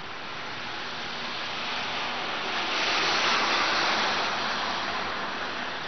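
A car passing on the street: a rush of tyre and road noise that swells to a peak about three to four seconds in and then fades away.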